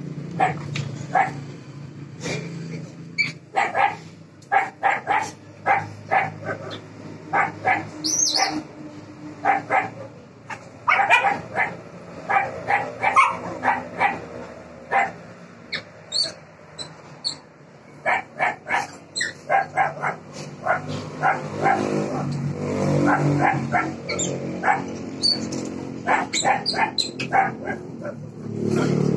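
Dog barking repeatedly in quick runs of short barks while play-wrestling with a young monkey.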